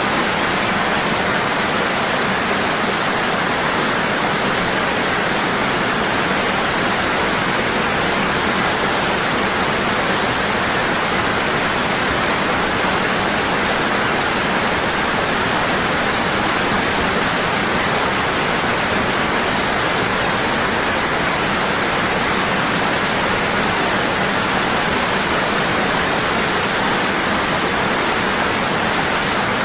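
Waterfall pouring strongly and constantly, a steady, even rush of falling water.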